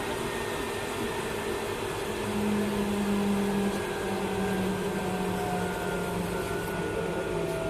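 CNC wood turning lathe running: a steady machine hum and whir. About two seconds in, a low tone comes in, and it and the higher tones slowly drop in pitch.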